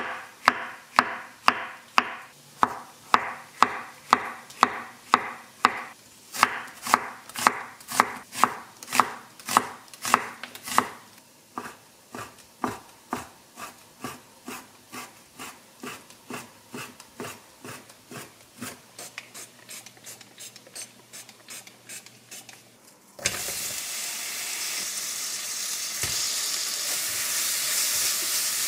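Chef's knife slicing button mushrooms and then bacon on a wooden cutting board, about two even cuts a second, the strikes growing softer after about 11 seconds. About 23 seconds in, sliced onion and minced garlic start sizzling in a frying pan with a steady hiss.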